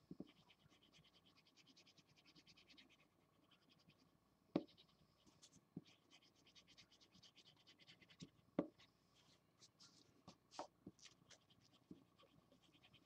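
Marker tip scratching on paper in quick back-and-forth strokes, colouring in, in runs with short pauses. There are a few soft knocks; the loudest come about four and a half and eight and a half seconds in.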